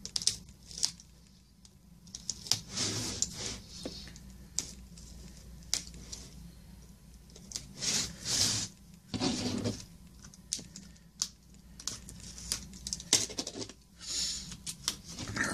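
Paper and cardboard packaging being handled: a manila envelope and a cardboard comic mailer rustling and crinkling in irregular bursts, with scattered small clicks and taps.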